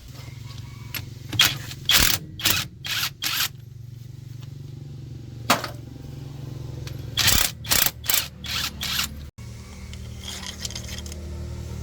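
A run of short scraping and rattling strokes in two clusters, one near the start and another later on, over a steady low hum.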